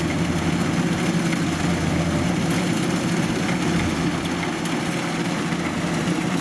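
Heavy engine running steadily at an even speed, a continuous low drone.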